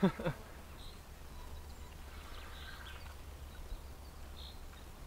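Quiet outdoor ambience with a steady low wind rumble and a few faint, isolated bird chirps.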